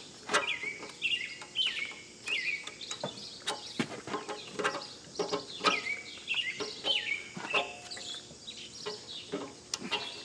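Repeated sharp metal clicks and clacks of hydraulic quick-connect couplers being handled and pushed together on a tractor loader's third-function lines, with a bird chirping again and again in the background.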